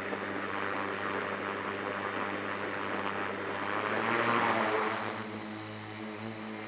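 Homebuilt drone's electric motors and propellers running right at the microphone, a steady whirring hum with a rush of propeller wash. About four seconds in it gets louder as the throttle goes up for lift-off, then eases as the drone climbs away.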